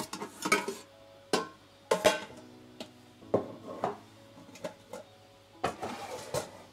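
Background music of plucked guitar notes, each starting sharply and ringing on, a few notes a second apart.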